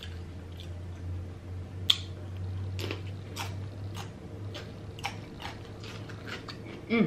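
Close-miked chewing: scattered wet mouth clicks and smacks as a mouthful of food is chewed, the loudest about two seconds in. A steady low hum runs underneath.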